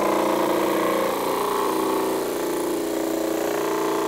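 Disc sander running steadily with a motor hum, a wooden bandsaw box pressed against the abrasive disc to sand its curved sides down to the paper pattern line.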